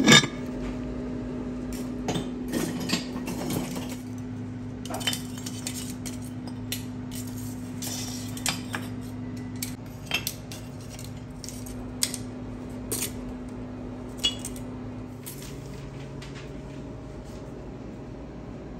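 Kitchen clatter: a scattered series of light clinks and knocks of hard objects such as dishes and utensils being handled, the sharpest right at the start. A steady low hum runs underneath and stops about fifteen seconds in.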